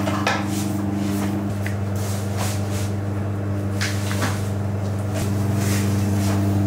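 Steady low hum of kitchen equipment, with scattered soft taps and pats as minced meat is cut with a knife and shaped by hand on a wet marble counter.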